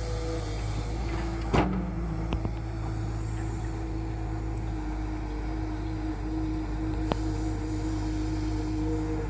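Tata Hitachi 210 excavator's diesel engine running steadily, with a steady whine over its low hum. A sharp knock comes about a second and a half in, and a short click near the end.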